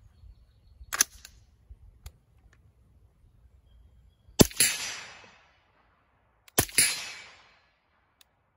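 Two shots from an integrally suppressed 300 Blackout AR-15, about two seconds apart, each a sharp crack followed by a tail that dies away over about a second; the ammunition is supersonic steel-case. A single sharp click comes about a second in, before the first shot.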